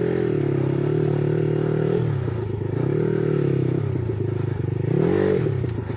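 Dirt bike engine under way, its pitch rising and falling as the throttle is opened and closed, with a quick rev up and back down about five seconds in. Some clattering from the bike over rough ground.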